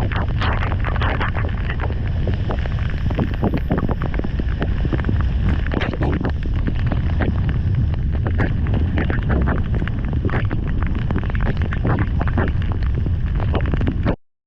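Heavy rain pouring, a dense crackle of drops with wind rumbling on the microphone; the sound cuts off abruptly near the end.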